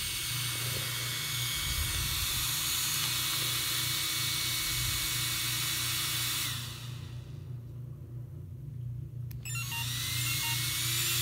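Cooling fan in the Losi 8ight RC truggy whirring with a high hiss. About six and a half seconds in, it winds down as the power is switched off. After a click near the end, it spins back up with a rising whine.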